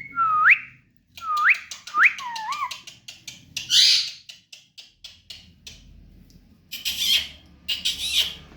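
Baby parrot giving about four short whistled calls that sweep sharply upward in pitch, followed by harsh squawks around the middle and again near the end.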